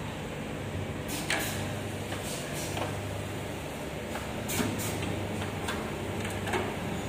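Automatic glue-filling line for LED display modules running: a steady low machine hum with a few short mechanical clacks, the loudest about a second in and around four and a half seconds in.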